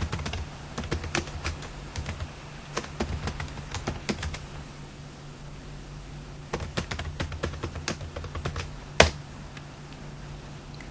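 Computer keyboard typing: a run of keystrokes, a pause of about two seconds, then a shorter run, and one harder key strike near the end, the loudest sound, as the Enter key sends a Windows logon. A low steady hum runs underneath.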